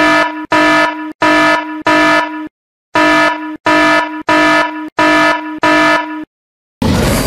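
Warning buzzer sound effect: a loud steady-pitched tone pulsing about one and a half times a second, four pulses, a short break, then five more, stopping about six seconds in. Music starts near the end.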